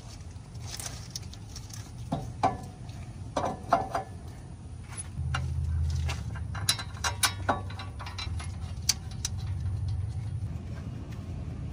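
Metal clinks and knocks as a new front wheel hub and bearing assembly is handled and fitted into the steering knuckle: sharp clicks in two clusters, a couple of seconds in and again past the middle, over a low steady rumble.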